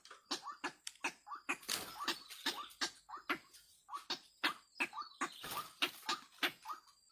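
White-breasted waterhen (wak-wak) calling, a long run of short harsh notes repeated about three times a second.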